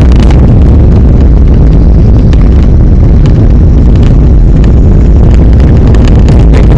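Car driving along a paved road, heard from inside the cabin: a loud, steady low rumble of engine and road noise.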